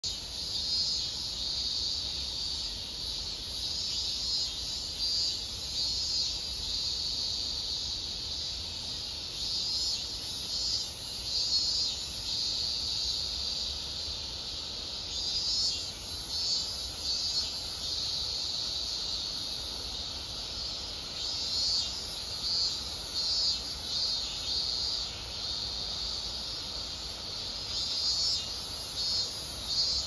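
A late-summer chorus of many cicadas singing together: a dense, high-pitched buzz that swells and fades in overlapping pulses without a break.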